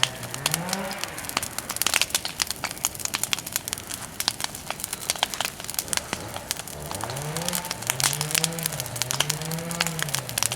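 Bonfire of cut persimmon wood crackling, with many sharp pops and snaps throughout. A low pitched tone rises and falls briefly near the start and several times in the second half.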